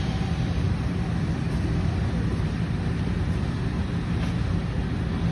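Steady low machine hum, with a faint click about four seconds in.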